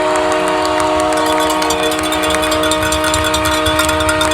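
Hockey arena goal horn: a multi-tone air horn sounding one steady chord, held unbroken, with crowd noise and clapping beneath it.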